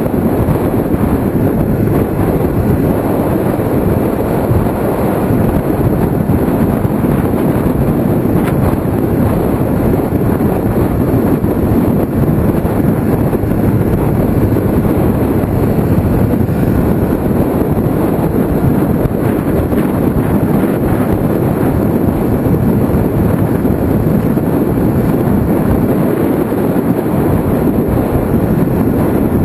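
Kawasaki ZX-6R sport bike riding at speed, its inline-four engine running under a steady rush of wind on the mirror-mounted camera's microphone.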